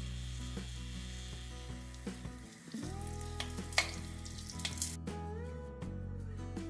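Coconut milk poured over fried prawns on a banana leaf in a hot chatti, sizzling as it hits. The sizzle drops away about five seconds in, under background music of steady low notes.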